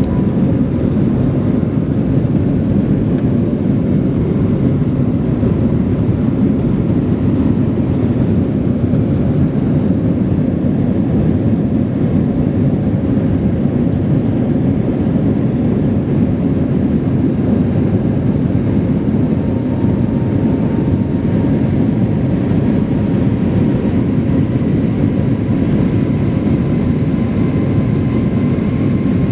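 Steady rushing noise of an airliner's jet engines and airflow, heard inside the passenger cabin during the climb after takeoff, with a faint whine that rises slightly in pitch in the last third.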